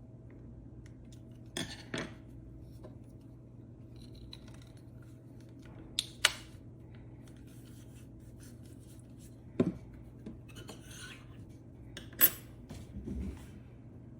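Sharp clicks and light scrapes of small hard parts being handled, a few seconds apart, over a steady low hum.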